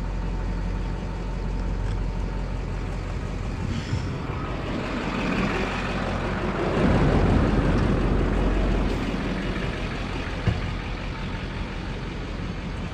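Pickup truck engine idling steadily, with a broad rushing noise that swells and fades between about five and nine seconds in.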